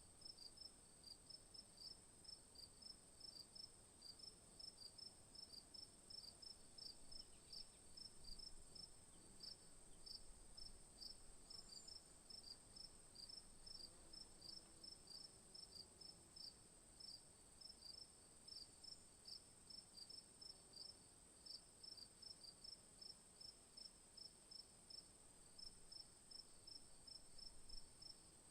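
Crickets chirping faintly: a steady high-pitched trill under a regular string of short chirps, about two or three a second.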